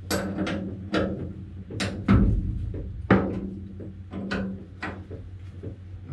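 Ring spanner and round bolted metal plate knocking and clanking together as the spanner works the plate's nuts and is handled, a series of irregular sharp metal knocks, the loudest about two and three seconds in.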